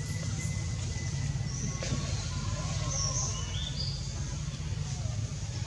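A few short, high bird chirps over a steady low rumble.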